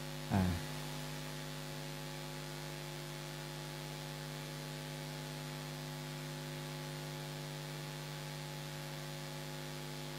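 Steady electrical mains hum from the recording setup, a buzzy drone of several evenly spaced tones. One brief, louder short sound comes about a third of a second in.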